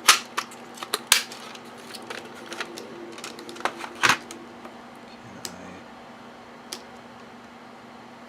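Plastic housing and parts of an EST GCAV horn strobe being handled and fitted back together: a quick run of sharp clicks and knocks over the first four seconds, then two soft clicks over a faint steady low hum.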